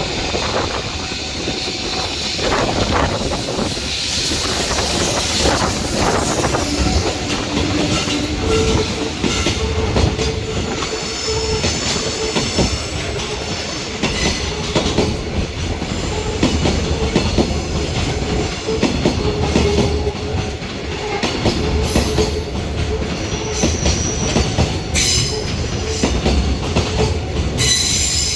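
A container freight train hauled by an EH500 electric locomotive rolling past, its wheels clattering steadily over the rail joints, with high-pitched wheel squeal coming and going.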